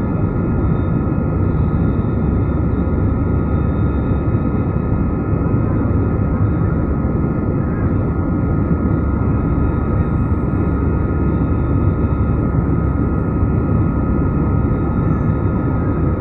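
Steady engine noise of a jet airliner's turbofans, heard inside the cabin during the climb after take-off: a deep rumble with a faint, steady whine above it.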